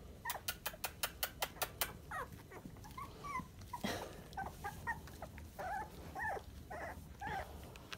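A quick run of about nine sharp clicks in the first two seconds. Then three-week-old long-haired dachshund puppies give short, high squeaks and whimpers, many of them bending up and down in pitch.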